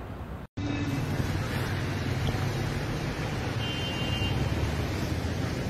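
Steady rush of floodwater and traffic on a flooded street, with cars moving through the water. A brief faint high tone is heard about four seconds in. A short dropout just after the start marks a cut from the sound of a wadi torrent.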